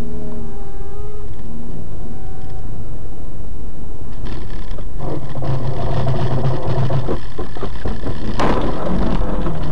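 A car driving, its engine and road noise picked up by a dashcam, with a sudden loud burst of noise about eight and a half seconds in.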